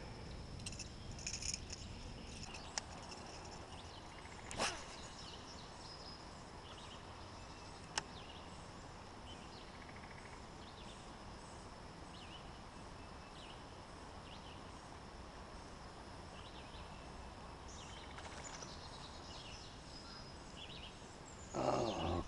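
Faint outdoor ambience of scattered bird chirps over a steady high hum. A few sharp clicks are heard, and a louder burst of noise comes near the end.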